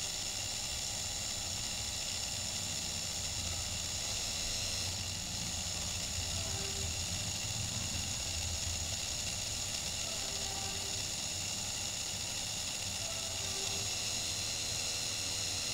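Homemade miniature rotary subwoofer running: its small DC motor spins a plastic fan over a speaker driver, giving a steady high whine and hiss, while a low bass from the music swells and fades underneath.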